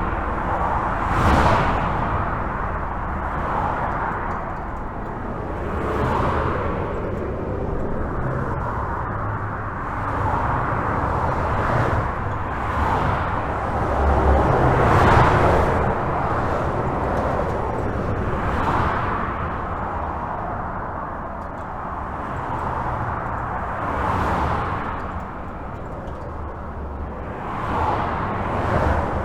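Continuous highway traffic heard from beneath a bridge: a steady rumble of tyres and engines with cars passing in a string of whooshing swells every two to three seconds, the loudest about fifteen seconds in.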